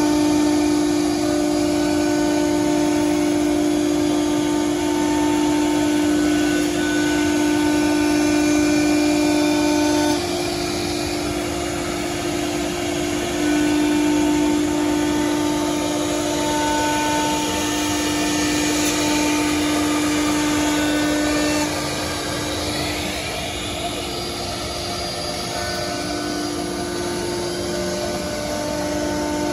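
CNC router spindle running at a steady high pitch as it routs grooves in melamine-faced board, with dust-extraction hiss underneath. The cutting sound dips briefly about ten seconds in and eases off after about twenty-two seconds.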